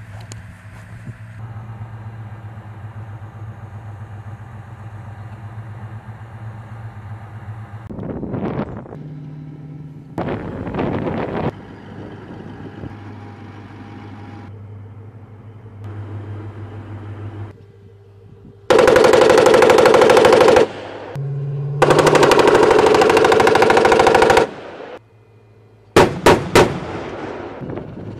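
An armored vehicle's engine running steadily, then two long bursts of automatic gunfire of about two seconds each, followed by three sharp shots in quick succession near the end. The gunfire is the loudest sound.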